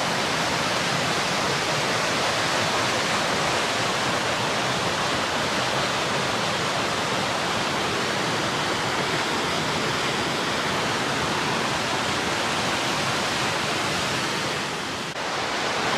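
White water of a glacial river rushing through a narrow rock gorge and down a cascade: a steady rush, dipping briefly near the end.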